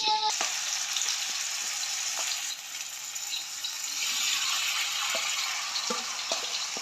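Food frying in hot oil in a pan: a steady sizzle with small crackles and pops scattered through it.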